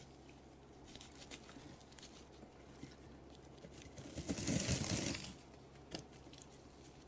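Faint rustling and small clicks of hands tying a strap around a couch's zigzag spring against its plastic bubble-wrap lining. A louder crinkling rustle comes about four seconds in and lasts about a second, and there is one sharp click near six seconds.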